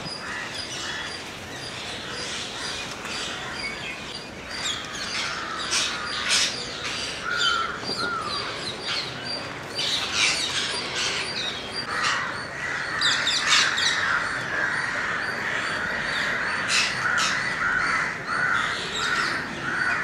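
A large flock of rose-ringed parakeets calling, with many shrill screeches overlapping. From about halfway through the calls thicken into a dense, continuous chatter.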